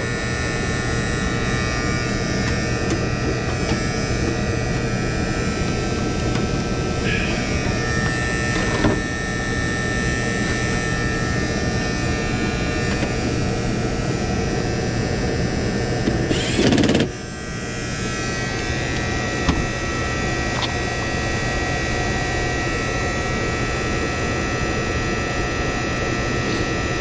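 Electric-heat air handler running with a steady electrical buzz and hum; its heat-kit contactor is buzzing but not faulty. A short knock about 17 seconds in.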